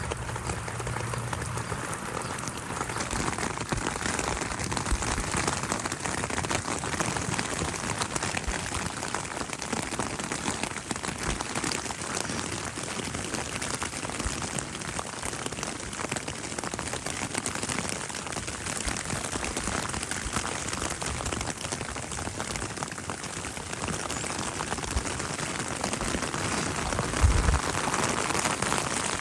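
Steady spring rain falling, with the patter of individual drops. A single low thump comes near the end.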